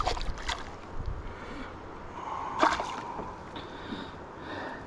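Hooked largemouth bass splashing and thrashing at the surface beside a canoe as it is brought in on a fly rod. A few sharp clicks and knocks stand out, one at the start and a louder one about two and a half seconds in.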